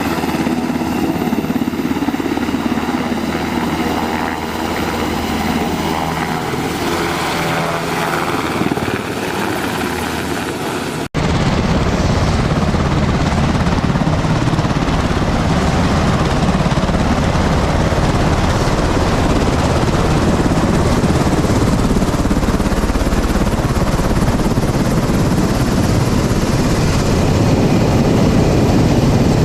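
UH-60 Black Hawk helicopter running, its twin turboshaft engines and rotors giving a steady pitched drone. About eleven seconds in, an abrupt cut brings a louder, rougher rush of rotor noise and downwash.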